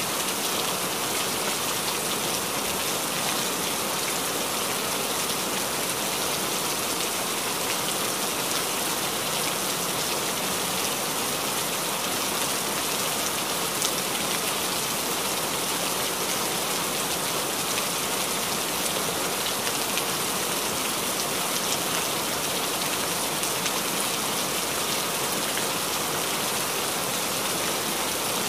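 A steady, even hiss with a few faint ticks in it.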